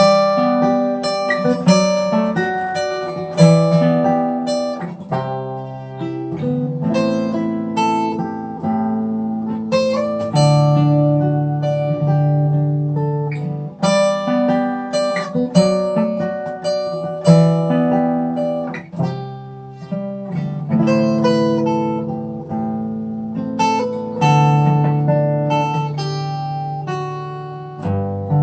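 Bentivolio 1501 all-solid acoustic guitar with Indian rosewood back and sides, played solo: plucked melody notes over bass notes, with some strummed chords. The playing starts suddenly at the beginning and runs on without a pause.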